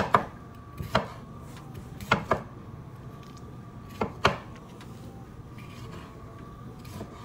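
Chef's knife slicing through a tomato and knocking down onto a cutting board: about seven sharp knocks, some in quick pairs, a second or two apart. A faint steady hum runs beneath.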